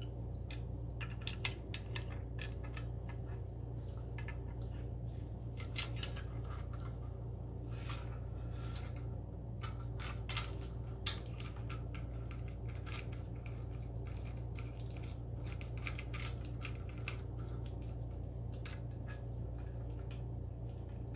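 Scattered small clicks and taps of a clamp bolt being lined up and worked into the handlebar clamp of a small LED bike light, over a steady low hum. The louder clicks come about 6 seconds in and again around 10 to 11 seconds.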